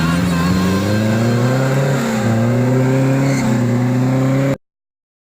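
Off-road vehicle's engine revving up under load, its pitch climbing slowly, dipping briefly about two seconds in and climbing again. The sound cuts off abruptly near the end.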